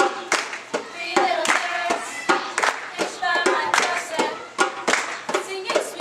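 A song with singing over a beat of sharp percussive hits, several a second.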